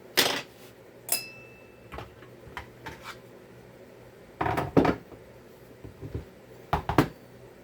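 Metal parts and hand tools clinking and clattering on a workbench during a chainsaw teardown: scattered knocks, one about a second in with a brief metallic ring, and louder clatters past halfway and near the end.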